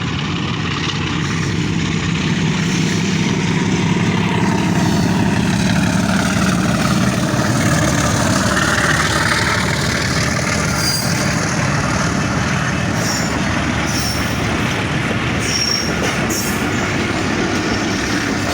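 A train running along the track with a steady loud rumble and rattle. Several brief high wheel squeals come in the second half.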